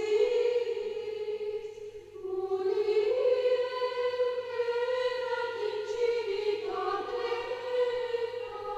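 Background choral music: voices singing long held notes, the chord changing a few times.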